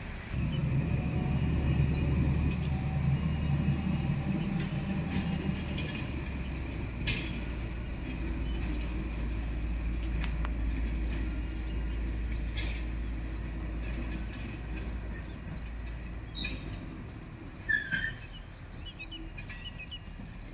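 A train's engine running with a steady low hum that comes in just at the start and eases off about sixteen seconds in, with a few sharp clicks along the way. Birds chirp near the end.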